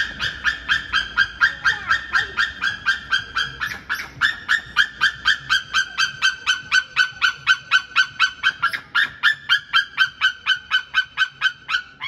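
A bird calling in a long run of rapid, evenly repeated high notes, about four to five a second, that sounds like laughing or a horse neighing. The calls break off briefly twice and stop suddenly at the end.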